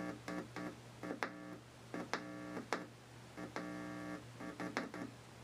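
Morse code tones keyed by hand, spelling out the name Sarah: short and long beeps of one low, steady pitch, broken up by a few sharp clicks.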